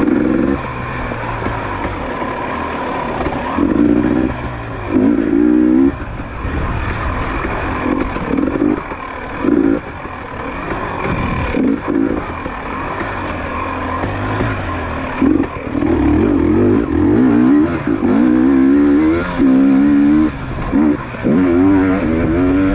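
GasGas EC250 two-stroke enduro motorcycle engine revving in repeated bursts as the throttle is opened and shut on a dirt track, its pitch rising and falling with each burst. The bursts come more often and last longer in the second half.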